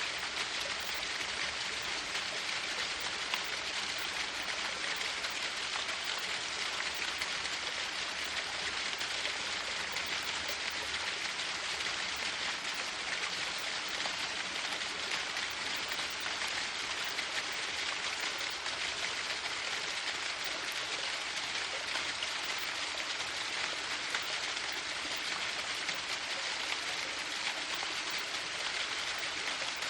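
Waterfall: falling water splashing in a steady, unbroken rush, its hiss mostly high.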